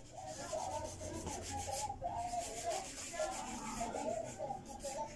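Nail file rasping back and forth across toenails in quick, repeated short strokes.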